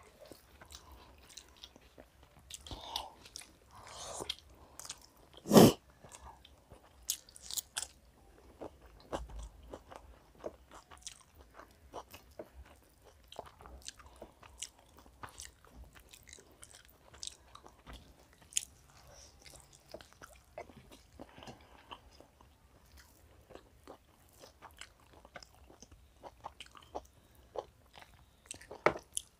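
Close-up eating sounds of two people eating chicken biryani by hand: chewing, lip smacks and fingers mixing rice on the plates, with many small scattered clicks. One loud sharp knock about six seconds in.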